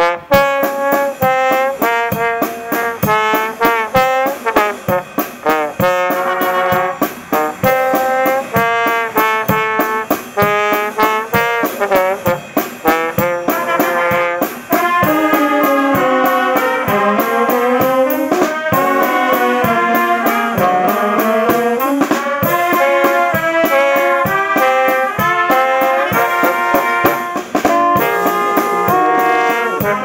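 Brass band of saxophones, trumpets, a tuba and a trombone playing a tune with a drum kit keeping a steady beat; the music picks up after a brief pause right at the start.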